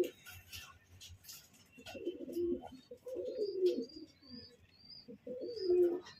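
Caged fancy pigeons cooing: three low coo phrases, about two, three and five and a half seconds in. A string of short high chirps from another bird runs through the second half.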